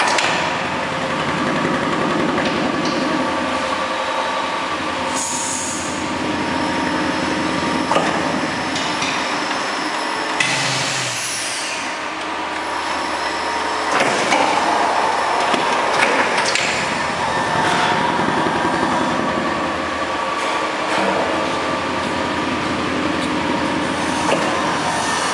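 Automatic conveyor-belt vacuum packing machine running: a steady mechanical noise with occasional sharp knocks and a few short bursts of hiss.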